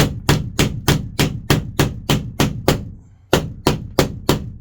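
Hammer blows on a wooden trim strip, struck steadily about three times a second, with a short break about three seconds in and then three more blows.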